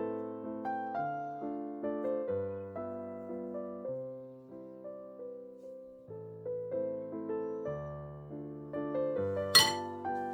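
Gentle background piano music, one note or chord after another at an even pace. Near the end, a single sharp clink cuts through, louder than the music.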